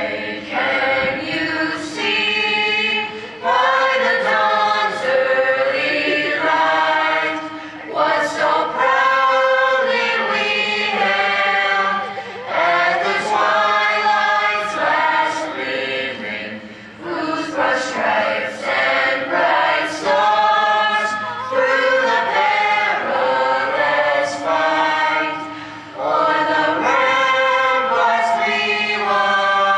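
High school mixed chorale singing unaccompanied, holding sustained chords in phrases with short breaks for breath between them.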